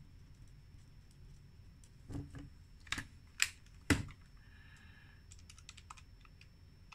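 Fine felt-tip pen tapping and writing on paper, with a few sharp clicks, the loudest about three to four seconds in, as the pen is set down.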